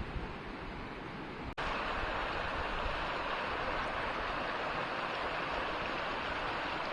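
Mountain creek water rushing over rocks, a steady hiss. After a sudden break about a second and a half in, it is louder and brighter.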